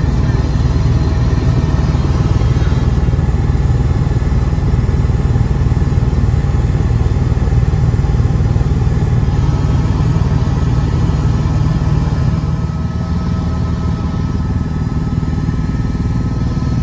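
Helicopter in flight, heard from inside the cabin: a loud, steady drone of the engine and rotor, easing slightly about twelve seconds in.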